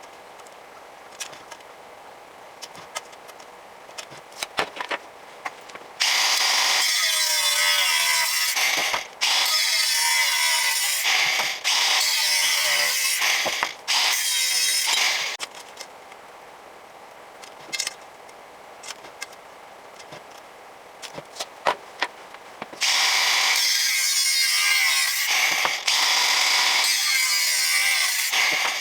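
A power tool runs in several bursts of two to three seconds each, its motor pitch wavering, with short breaks between them. Between the runs there are quieter stretches of light clicks and knocks from handling parts.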